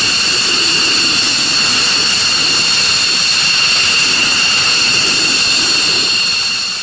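F-15 Eagle's twin jet engines running on the ground: a steady high-pitched whine over a loud, even rush. The sound fades out near the end.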